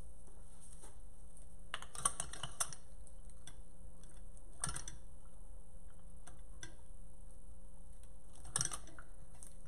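Hands working with floral stems and a metal tool on a worktable: three short clusters of clicks and rattles over a steady low background hum.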